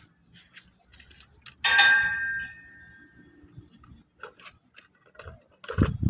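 A metallic clank a little under two seconds in that rings on for over a second, with light scattered clicks around it. A low rumble starts near the end.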